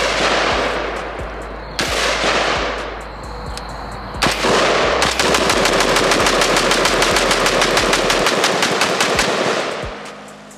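Loud rifle shots: three single shots about two seconds apart, then a rapid string of shots lasting about four and a half seconds, each with a ringing echo.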